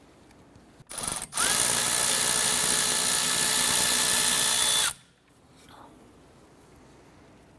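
Power tool on a 14mm socket backing out a brake caliper bolt: a short burst, then about three and a half seconds of steady running. The motor pitch rises as it spins up and drops as it stops.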